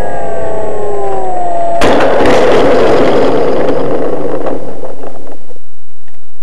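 Electric motor and propeller of an RC Cessna 182 model, heard from the plane itself, whining and falling in pitch as it winds down. A little under two seconds in comes a sudden loud bang of touchdown, then a loud scraping, rattling rumble as the model rolls and skids over rough ground, dying away near the end.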